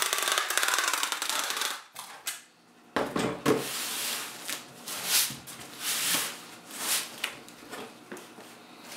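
Packing tape being pulled off a pistol-grip tape gun across a cardboard box seam: a continuous rasping screech for about two seconds. After a brief break come further irregular tape pulls and scrapes of tape and hands on the cardboard.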